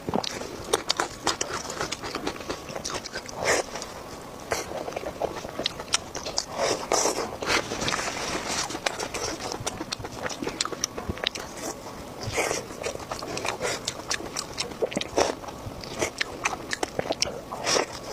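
Close-miked eating: wet chewing, biting and mouth smacks, a dense irregular run of sharp clicks and squelches.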